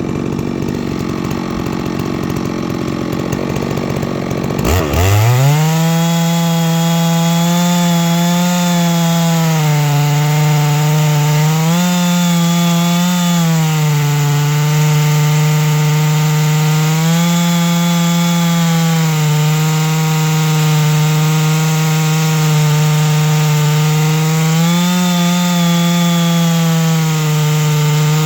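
Chainsaw milling through a large black oak log. About five seconds in the engine revs sharply up to full throttle, then runs hard in the cut, its pitch sagging and recovering every few seconds as the load changes. The chain is self-feeding through the wood.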